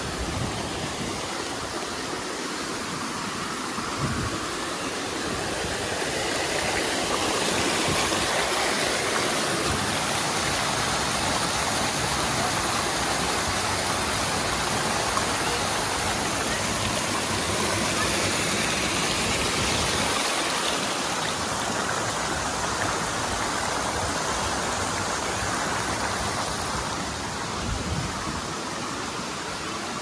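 Small waterfall and rocky creek rushing steadily. It grows louder a few seconds in and eases off a little about two-thirds of the way through.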